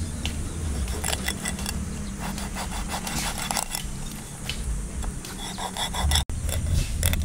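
Cleaver cutting through a large fish along its backbone on a wooden chopping block: a run of short scraping clicks and crunches.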